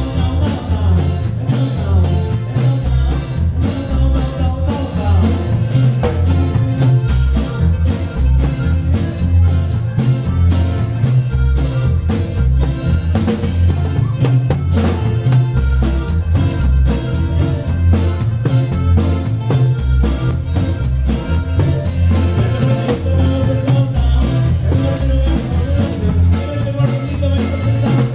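Norteño band music played loudly through a PA system, with a steady drum beat, a bouncing bass line, guitar and singing.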